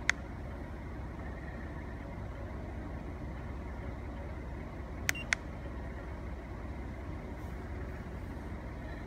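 Ford EcoBoost engine idling steadily, heard from inside the cab. Two pairs of short clicks from the code reader's buttons being pressed, one pair at the start and another about five seconds in.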